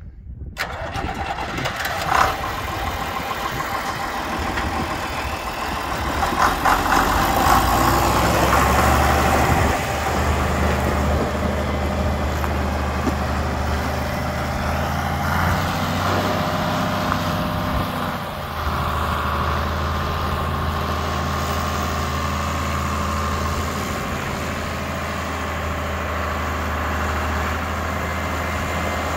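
John Deere 4020 tractor's six-cylinder engine running as the tractor pulls away and drives around. For the first several seconds the sound is rough and uneven. By about ten seconds in it settles into a steady, louder engine note, with a brief dip near eighteen seconds.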